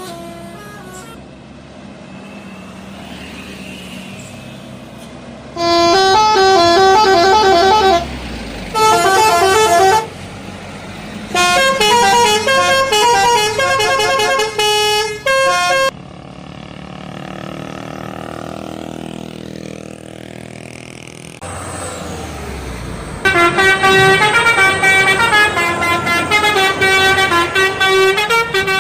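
Indonesian bus telolet horns playing quick multi-note tunes, the pitch stepping up and down, in four loud bursts. Between the third and fourth bursts there is a quieter stretch of bus engine and road noise.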